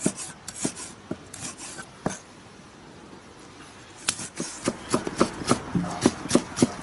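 Kitchen knife cutting pickled chilies into strips on a cutting board: a few scattered chops, a short pause, then from about four seconds in a steady run of cuts about four a second.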